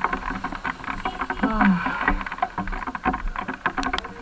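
Rain falling, with drops striking close by in an irregular rapid patter. A faint voice is heard briefly about one and a half seconds in.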